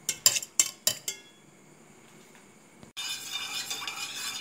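A spoon clinks five times in quick succession against a steel mixer-grinder jar as a spoonful of soaked raw rice is knocked into it. About three seconds in, a steady scraping begins as the thick cooked rice paste is stirred in a steel pot.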